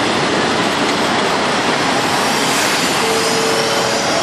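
Passenger train passing close along the platform: a steady rush and rumble of the carriages rolling by, with a faint steady whine joining about three seconds in.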